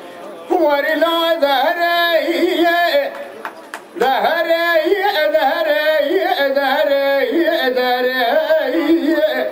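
A male dengbêj singer chants a Kurdish song with no instruments, in long ornamented phrases that waver in pitch. He starts about half a second in, breaks off for a breath about three seconds in, and resumes a second later.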